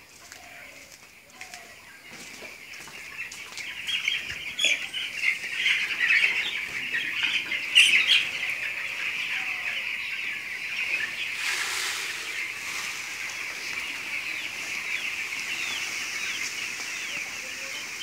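A large flock of 15-day-old broiler chicks peeping all at once, a dense chorus of high, short overlapping peeps. It swells over the first few seconds and then holds steady, with a brief rushing hiss about twelve seconds in.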